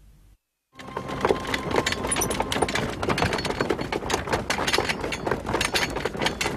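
Hurried footsteps of a group of guards moving quickly over stone paving: a dense, steady clatter of many overlapping steps that starts abruptly just under a second in.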